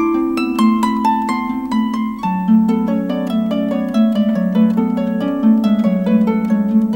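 Concert harp being played: a quick, flowing run of plucked notes that ring and fade, over lower notes in the bass.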